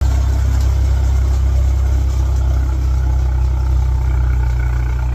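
An engine running steadily at idle, a constant low hum with no change in speed.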